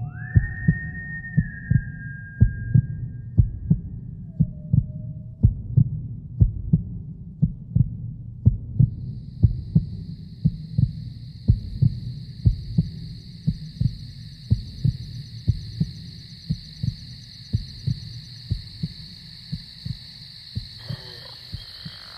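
Heartbeat sound effect: a steady run of deep double thumps over a low rumble. A high wavering tone trails off in the first couple of seconds, and a thin high steady whine comes in about nine seconds in and holds.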